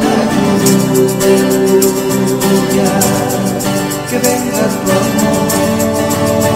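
Instrumental outro of a Spanish-language Christian worship song: held chords over a steady beat, with the vocal line finished.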